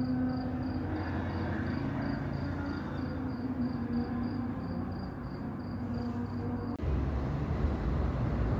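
Night street ambience: a cricket chirping in an even pulse of about three chirps a second over a low steady hum. About seven seconds in it cuts suddenly to a louder low rumble like traffic.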